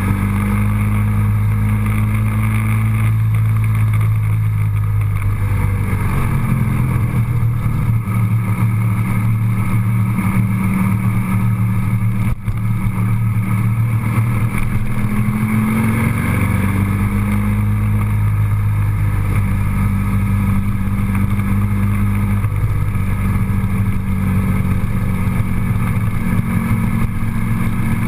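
Motor vehicle engine and road noise, a steady low drone whose pitch shifts a couple of times as the engine speed changes.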